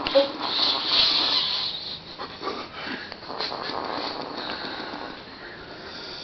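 A man snoring: a loud raspy breath about a second in, then quieter rasping breaths.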